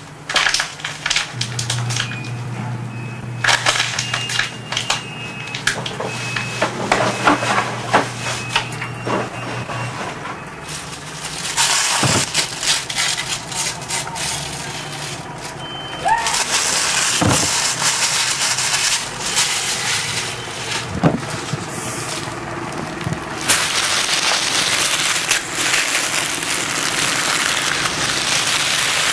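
Recyclable packaging and paper being crushed and crinkled by hand: dense, irregular crackling with many sharp clicks. A steady low hum runs under the first third. The crackling grows denser and louder about halfway through, and again near the end.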